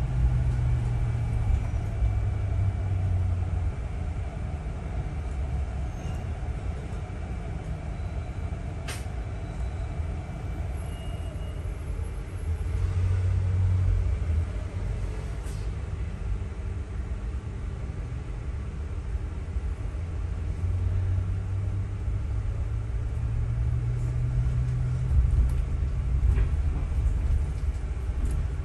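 Double-decker bus heard from inside on the upper deck: a steady low rumble of engine and road that swells and eases several times, with one sharp click about nine seconds in.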